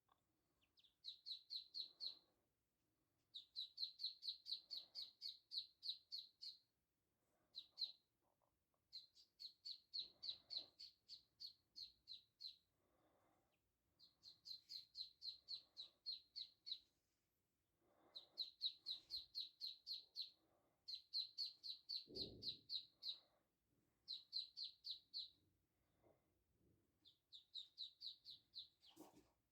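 Three-day-old ducklings peeping in rapid runs of short, high peeps, about five a second, in bouts broken by brief pauses. A single soft low thump comes about three-quarters of the way through.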